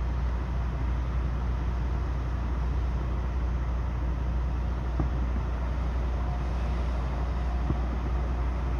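Steady low drone of an idling truck engine, with two faint sharp pops, one about five seconds in and one near the end.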